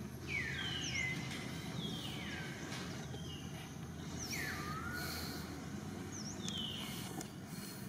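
A baby monkey crying with repeated high-pitched squeals, each falling in pitch, about one a second, over a low background hiss.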